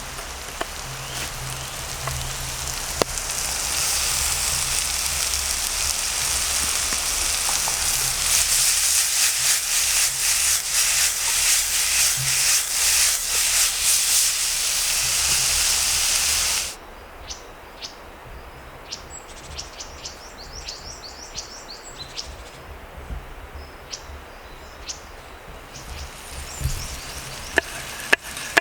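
Food frying in hot oil: a loud steady sizzle with dense crackling. It cuts off abruptly about two-thirds of the way through, leaving a much quieter stretch with faint scattered clicks.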